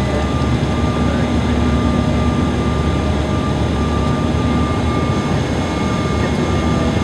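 Cabin noise inside a Bombardier CRJ700 airliner on final approach: a steady roar of its rear-mounted General Electric CF34 jet engines and rushing airflow, with a few faint steady whining tones over it.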